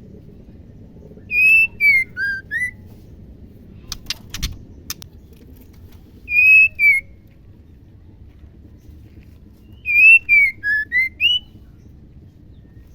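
Female white-rumped shama whistling three short phrases of clear notes that slide down and back up, with a few sharp dry clicks between the first and second phrases.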